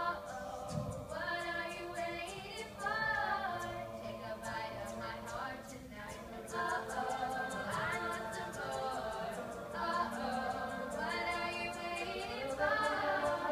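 Mixed boys' and girls' a cappella group singing a song in harmony, with a steady ticking vocal-percussion beat from a singer on a handheld microphone.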